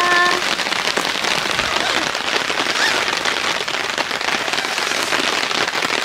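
Steady rain from a summer shower falling without letup, an even wash of drops.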